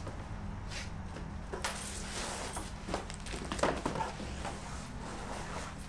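Handling noise from a tactical armour backpack: its straps and fabric rustling, with a few soft knocks as it is lifted up to be put on, over a steady low hum.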